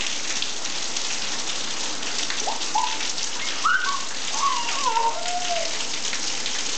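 Steady rain falling on a concrete driveway, an even hiss of drops. A few brief sliding tones rise and fall over it in the middle.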